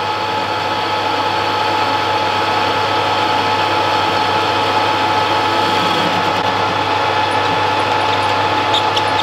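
Metal lathe running steadily under cut, a constant whine from its motor and gearing, as the turning tool takes a 1.1 mm deep pass down a pin to bring it to about 7.9 mm diameter. A few faint ticks come near the end.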